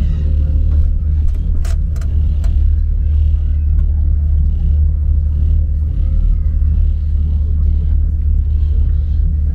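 Steady low drone of a Bosporus passenger ferry under way, with a few sharp clicks about two seconds in.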